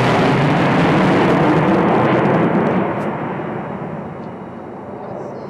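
Jet noise from a formation of six Su-27 fighters' twin turbofan engines passing overhead: loud for about three seconds, then fading as the high hiss drops away and the planes move off.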